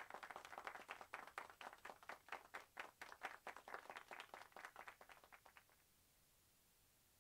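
Faint hand clapping, separate claps several times a second, dying out about five and a half seconds in; then near silence.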